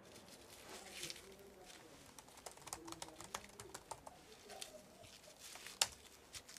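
Faint typing on a laptop keyboard: irregular key clicks, with one sharper click near the end.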